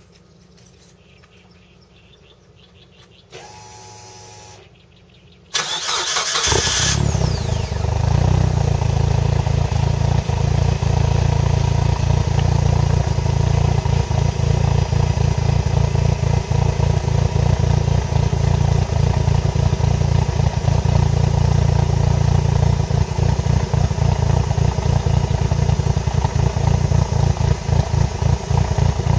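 Mitsubishi Lancer Evolution CP9A's turbocharged 2.0-litre 4G63 inline-four started through a Fujitsubo Power Getter exhaust with the silencer insert removed: a brief whine, then the starter cranks about five seconds in, the engine catches a second later and settles into a loud, steady idle with a deep, fast-pulsing exhaust note.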